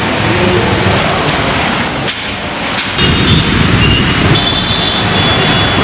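Heavy monsoon rain falling steadily, a dense hiss of rain on surfaces; a low rumble joins about three seconds in.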